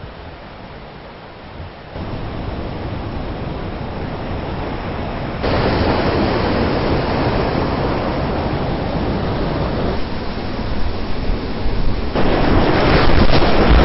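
Steady rushing of whitewater river rapids, getting louder in sudden steps about two, five and twelve seconds in.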